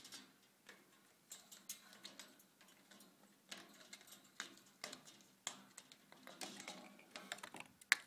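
Irregular light clicks and taps of a budgie pecking and scrabbling at a cardboard tube and perch in a wire cage, with a sharper click near the end.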